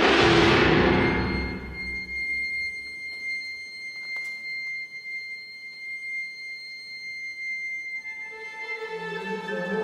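Contemporary orchestral music: a loud percussion crash dies away over the first second or so, leaving a single very high held note for about seven seconds. Near the end, strings come in with several sustained notes, high and low.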